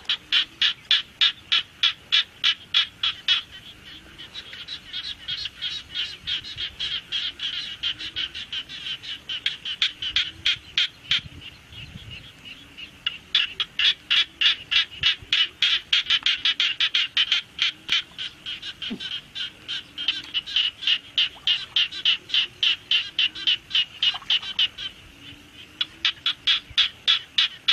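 A frog calling: a fast run of short high notes, about five a second, in long bouts with a few brief breaks.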